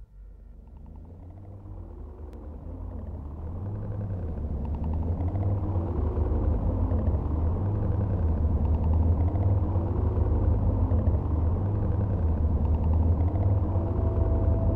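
Synthesizer music: a deep drone that swells up over the first several seconds, with slow tones rising and falling above it every four seconds or so, and a steady higher tone coming in near the end.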